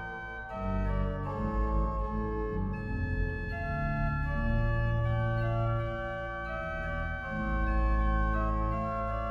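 Historic baroque pipe organ, the 1752 Johann Hencke organ, playing sustained chords and moving lines in a baroque sonata in G minor. It is tuned to a′ = 430 Hz in equal temperament. Deep bass notes come in strongly about seven seconds in.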